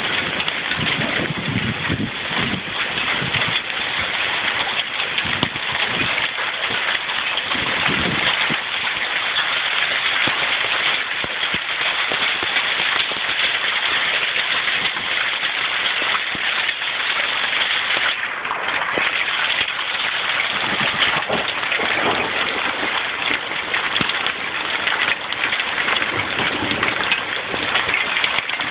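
Hail falling together with rain: a dense, steady hiss of countless small ice pellets and drops striking the ground and nearby surfaces.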